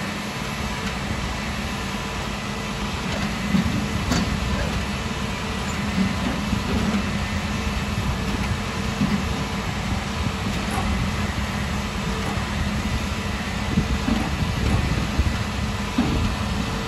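Heavy truck's diesel engine running steadily at idle, with a faint steady whine above the engine note and an occasional click.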